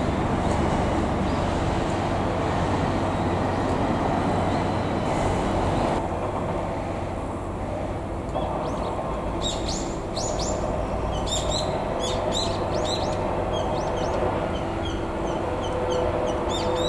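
The depot switcher's diesel engine running with a steady low hum throughout. From about nine seconds in, small birds chirp in quick, short repeated calls over it.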